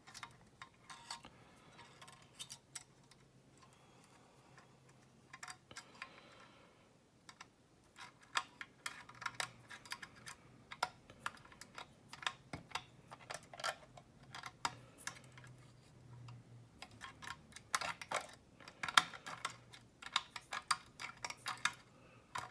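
Light metallic clicks and scrapes of a pick wire and tensioner working the levers inside a padlock, in irregular runs that grow busier after several seconds, over a faint steady hum.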